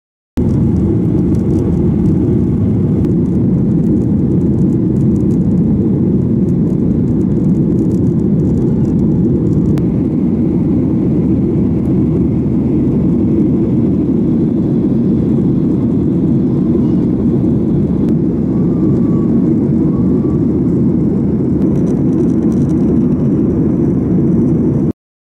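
Cabin noise of a jet airliner in flight, heard at a window seat: a steady, loud low rumble that starts and stops abruptly.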